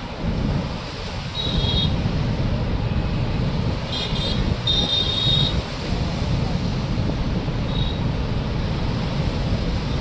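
Floodwater pouring through the open spillway gates of a large dam: a steady, heavy rushing noise. A few short high whistle-like tones sound over it.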